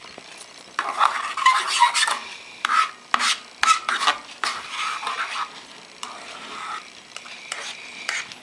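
Plastic fork scraping and tapping against a shallow dish of water while chopping up a clump of tubifex worms: a run of scratchy strokes and sharp clicks starting about a second in, busiest early on, then spaced strokes.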